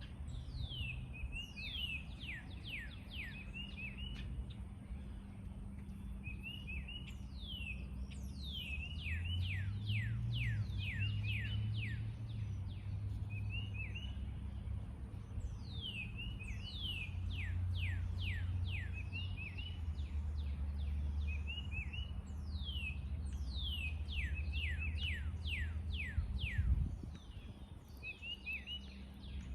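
Songbirds singing: one bird repeats a fast series of sharp, downward-sweeping whistled notes every six or seven seconds, with short chirps in between, over a low background rumble. A single thump sounds about 27 seconds in.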